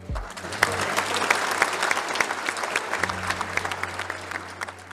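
Members of parliament applauding in a large chamber, many hands clapping densely, thinning out near the end.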